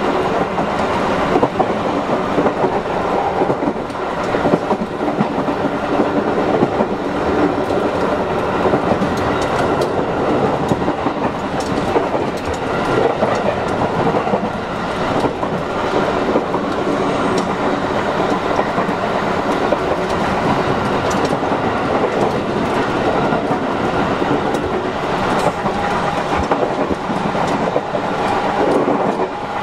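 Running noise heard aboard JR West 223 series electric motor car KuMoHa 223-3009: a steady rumble of wheels on rail with an even hum, and scattered short clicks from the track.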